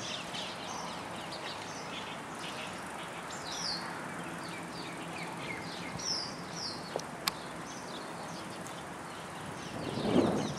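Many small birds chirping in quick, short notes over a steady outdoor background hiss, with a brief louder burst of low noise near the end.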